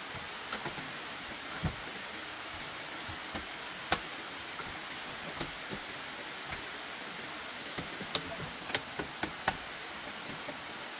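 Irregular sharp knocks and clicks over a steady hiss, the loudest knock about four seconds in and a quick run of them near the end.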